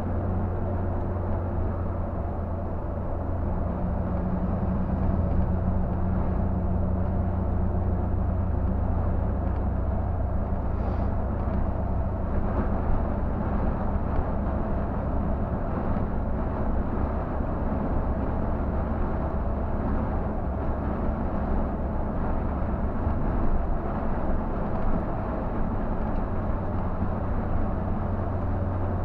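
Scania K124 360 bus's 12-litre straight-six diesel running at highway cruising speed, heard from inside the driver's cab as a steady low drone.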